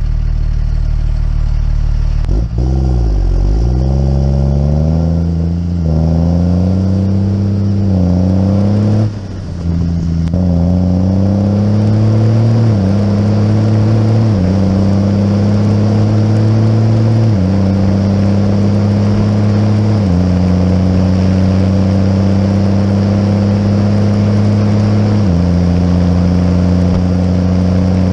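Muck cart's diesel engine pulling away and accelerating along the road. The engine note wavers at first, then steps down in pitch five times as it shifts up through the gears and settles into a steady cruise.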